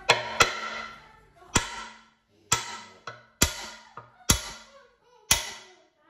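Claw hammer striking a tab inside a scooter's cast-metal deck frame, about eight blows roughly a second apart, each ringing briefly after the hit, to knock the tab out of place.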